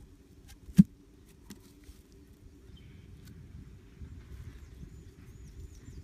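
Handling of thin wooden sticks being set into soil: one sharp knock about a second in, then a few lighter clicks. From about four seconds in, a high chirping repeats several times a second.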